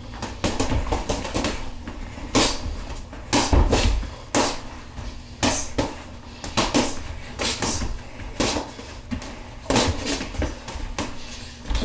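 Boxing gloves landing punches on a heavy bag and in sparring: irregular sharp slaps and thuds, about one or two a second, one with a deep thump about four seconds in.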